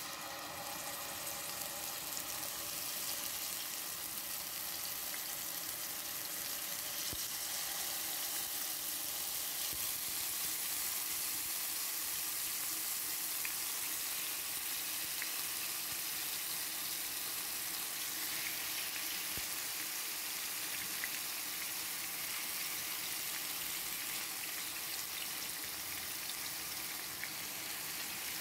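Yogurt-marinated chicken tikka pieces sizzling steadily as they pan-fry in hot oil.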